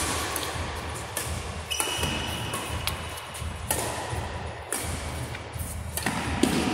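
Badminton rally in a large hall: sharp cracks of rackets striking the shuttlecock every second or so.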